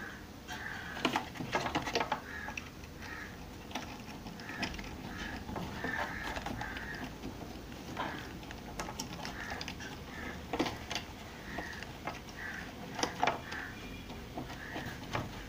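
Small clicks and taps of a screwdriver and wire being worked on a washing machine selector switch terminal while a red wire is fastened, with clusters of taps about a second in and again near the middle and toward the end. A repeated short high chirp sounds in the background about twice a second throughout.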